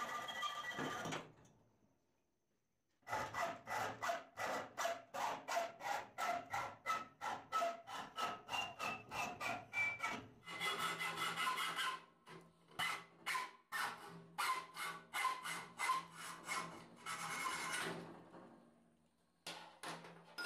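Restored antique adjustable hacksaw cutting through a metal tube clamped in a vise, in quick back-and-forth strokes of about three a second. The sawing stops for a second or two near the start, then runs on with the strokes slowing in the second half, when a steady low hum joins in underneath.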